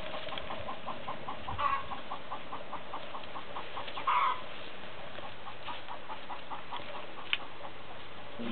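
Short chirping animal calls repeated evenly, about four a second, with a couple of louder calls about one and a half and four seconds in.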